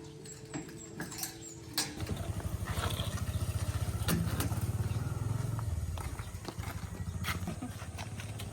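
A small engine running with a rapid low pulse, starting about two seconds in, with scattered knocks and clicks over it.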